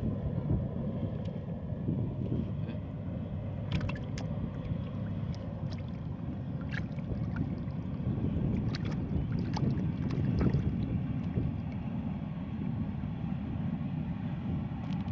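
Low wind rumble on the microphone, with scattered small splashes and squelches of hands groping through muddy water in a dug hole.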